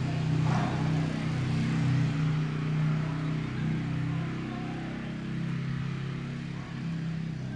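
A steady low mechanical drone, like a motor or engine running.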